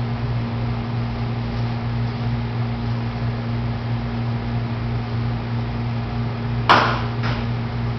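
A steady low hum, with a single sharp click about seven seconds in and a fainter click just after.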